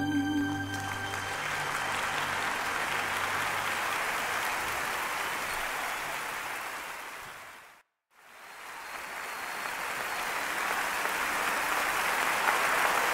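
The last notes of a song die away, then audience applause fades out to a brief silence about eight seconds in and fades back up.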